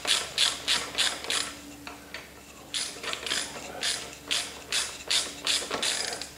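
Hand socket ratchet clicking as it runs a connecting-rod cap nut down snug on a Ford Model T engine, in quick back-and-forth strokes of about three a second. There is a pause of about a second near the middle.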